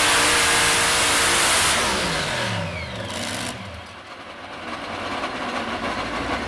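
Modified pulling tractor's supercharged engines at full throttle, then shutting off about two seconds in and winding down in falling pitch, which marks the end of the pull.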